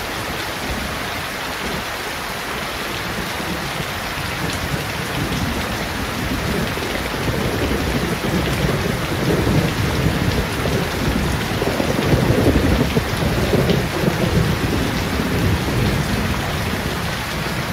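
Steady rain falling on leaves and a wet paved yard, an even hiss. A low rumble swells from about five seconds in, is loudest a little past the middle and eases off near the end.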